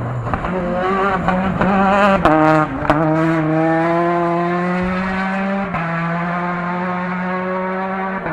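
Rally car's engine under hard acceleration, its note climbing, dropping sharply at gear changes about two and a half and nearly six seconds in, then holding a steady high pitch.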